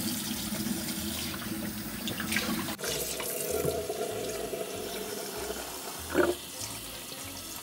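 Kitchen tap running into a plastic bowl in a stainless steel sink as a whole raw chicken is rinsed by hand under the stream, water splashing steadily. A brief, louder pitched sound comes about six seconds in.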